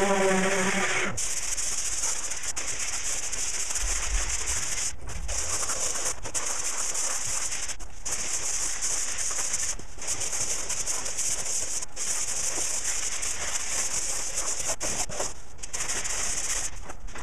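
An electric orbital sander runs and switches off about a second in. Then comes sanding of the filler-coated car body: a steady scratchy rubbing, broken by short pauses every second or two.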